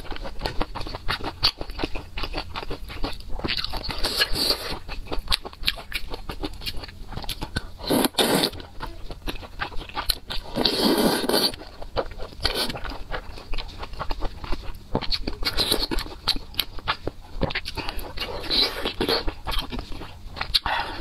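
Close-miked eating sounds: wet chewing and mouth clicks from a person eating soft food from a spicy stew. There are a few louder slurps spread through, one as a wide noodle-like piece is sucked in from the chopsticks.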